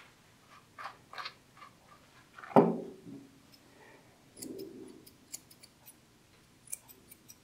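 Curved grooming scissors snipping the long hair around a golden retriever's paw, a quick run of small crisp snips in the second half. Before that come a few light clicks and one louder knock about two and a half seconds in.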